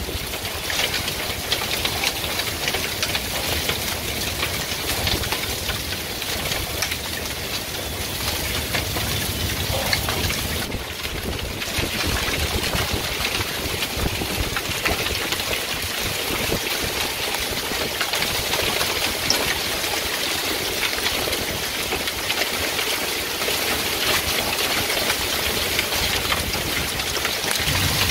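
Small hail mixed with rain falling steadily on a covered porch and its deck: a dense, even patter of many tiny ticks.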